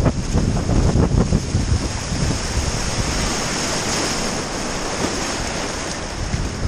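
Breaking surf and whitewater rushing around a sea kayak's bow, with wind buffeting the microphone. The rushing hiss of the broken wave is strongest about four seconds in.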